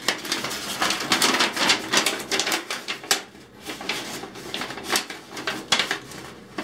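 Paper and wrapper from a pregnancy test crinkling and rustling as they are handled, an irregular run of crackles and clicks. It is busiest over the first three seconds, then thins to a few sharp clicks.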